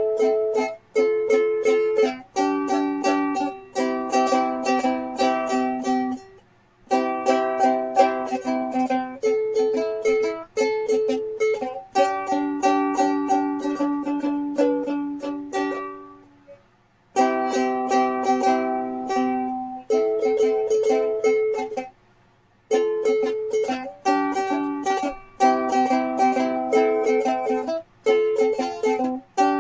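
Ukulele strummed in quick chord strokes at a fast tempo by a beginner, with no singing. The playing breaks off briefly three times: near six seconds in, near sixteen seconds in and near twenty-two seconds in.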